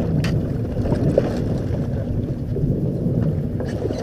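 Wind buffeting the microphone on an open boat deck, a steady low rumble, with a couple of light knocks about a quarter second and a second in.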